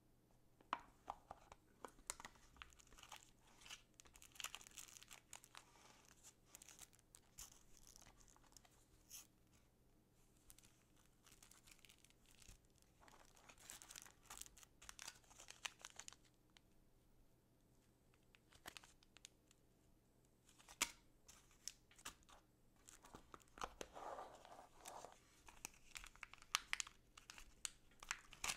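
Knife packaging being opened by hand: irregular rustling, crinkling and tearing of wrapping, with scattered sharp clicks and taps, coming in several spells with short lulls between them.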